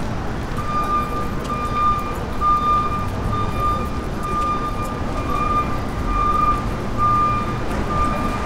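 Lego 9V train running along plastic track with a low rumble, over a high electronic beep repeating a little faster than once a second, like a level-crossing warning.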